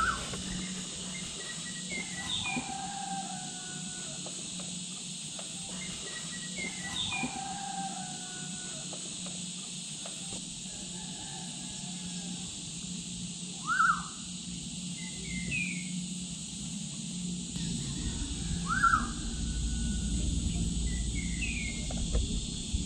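Lakeside ambience: a steady high drone of insects, with birds chirping every few seconds and two louder swooping bird calls in the second half.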